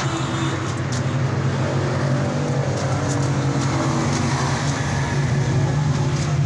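Car engine idling steadily as a low, even hum, heard from beneath the car beside the exhaust pipe and silencer.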